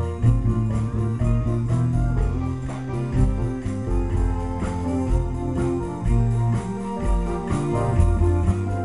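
Live Cajun-zydeco band playing: a Cajun button accordion and an electronic keyboard over drums and a low bass line, with a steady beat.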